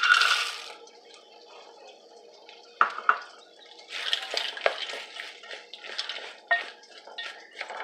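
Raw peanuts tipped from a plate into a metal pot of frying tomato and onion, a short rush as they land. A wooden spoon then stirs them in, scraping and knocking against the pot a few times.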